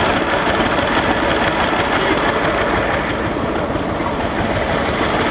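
Small vintage stationary engines running with a steady, fast mechanical clatter.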